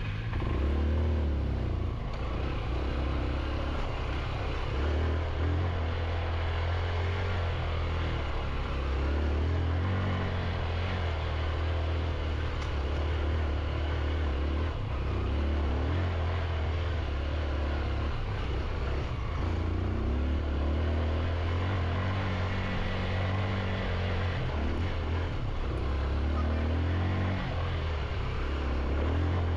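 Motorcycle engine running under way on a dirt mountain trail, a steady low drone whose pitch rises and falls with the throttle.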